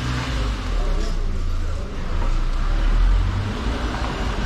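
A small car's engine running as it drives slowly past at close range, a steady low rumble.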